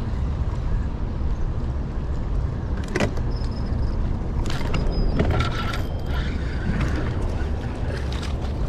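Wind buffeting the microphone on a fishing boat, a steady low rumble, with scattered clicks and knocks and a few short thin high tones around the middle.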